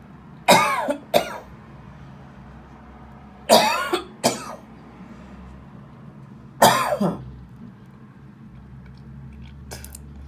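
A woman coughing in three bouts about three seconds apart, the first two each a cough followed quickly by a shorter second one, her voice dropping in pitch through each. It is a chesty cough bringing up phlegm.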